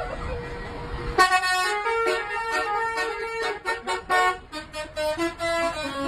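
A bus's telolet horn, a multi-trumpet air horn, plays a quick tune of changing notes. It starts suddenly about a second in, after a single steady tone.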